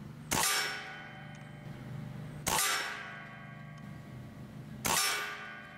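Three shots from a .25 caliber Benjamin Gunnar regulated PCP air rifle, a couple of seconds apart. Each is a sharp crack followed by a metallic ringing that fades over about a second.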